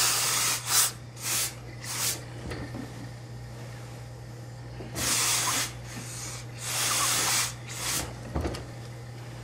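Steam iron giving off short hisses of steam as it presses suit trousers: several quick puffs in the first two seconds, then longer hisses about five and seven seconds in, and a short one near the end. A steady low hum runs underneath.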